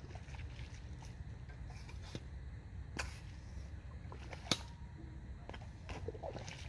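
Bait pump being worked into a tidal mud flat: scattered sharp clicks and small wet pops, the loudest about four and a half seconds in, over a steady low rumble.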